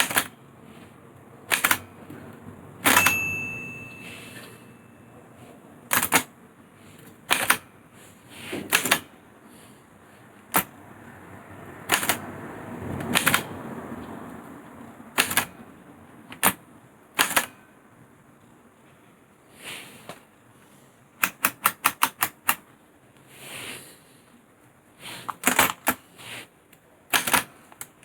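Olivetti Lettera 22 portable typewriter being typed slowly, keys struck one at a time at uneven intervals, with a quick run of about eight strokes a little past the middle. A short ringing tone sounds about three seconds in.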